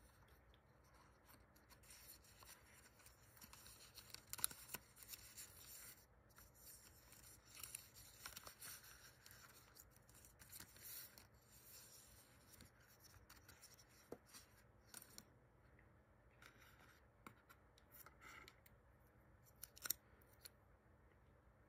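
Quiet rustling and scraping of white cardboard packaging as it is slid apart and handled: an inner tray drawn out of its sleeve and card pieces lifted and set down, with a few light clicks, one near the end.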